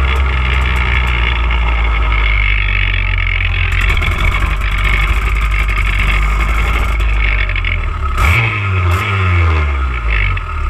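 TM K10B two-stroke kart engine running at low speed, with a steady low drone. About eight seconds in, its pitch rises and falls a few times in short revs.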